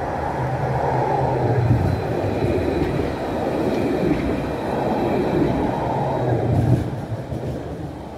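A tram running on its rails, a steady rumble with a faint high whine partway through, fading toward the end.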